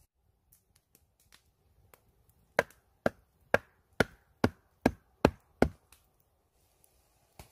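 Eight sharp knocks about two a second, each with a brief ringing after it. Fainter scattered ticks come before them, and there is one more knock near the end.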